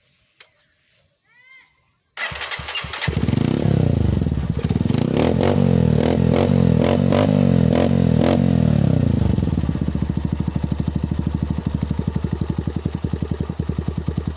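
Honda TMX single-cylinder four-stroke motorcycle engine started through an open bullet pipe muffler with its silencer insert removed: about two seconds in it cranks briefly and catches, runs loud at raised revs, then about ten seconds in drops to a lower, evenly pulsing idle.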